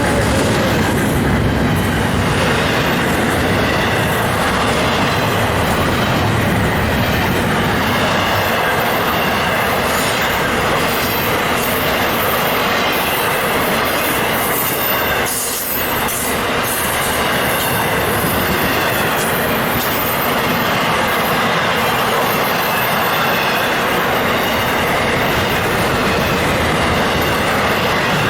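A train passing close by: a steady loud run of steel wheels on rail, with a short lull about halfway through.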